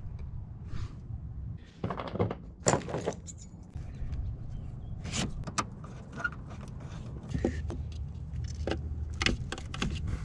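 Scattered clicks, taps and clatter of a screwdriver and plastic and metal engine-bay parts being handled while an oil catch can is fitted, over a steady low rumble.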